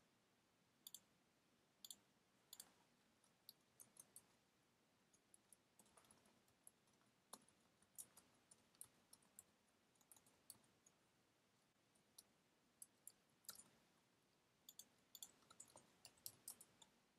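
Faint, scattered clicks of a computer keyboard and mouse, a few at a time with near silence between, coming thicker near the end.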